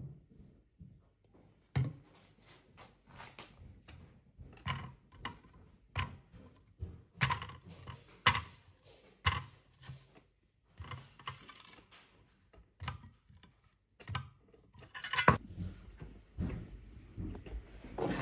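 Kitchen handling sounds: a run of irregular light knocks and taps as apple slices are picked up on a cutting board and laid in a glass bowl. At the very end a ceramic bowl is set down on the countertop with a loud clink that rings briefly.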